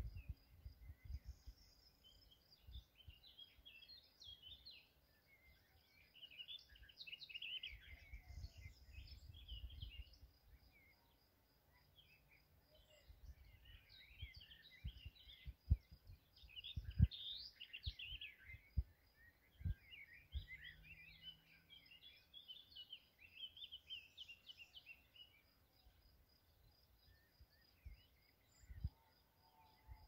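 Several songbirds singing, a loose chorus of quick chirps and twitters, with a faint, evenly repeated high tick behind them. Low rumbles of wind on the microphone come and go.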